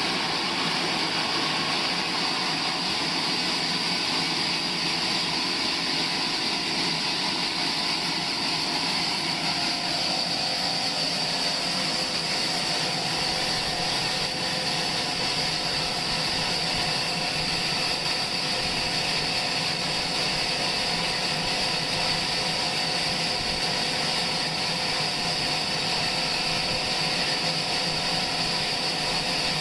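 Sawmill machinery running steadily: the saw and its motor make a continuous mechanical noise with a steady high whine, unchanging in loudness.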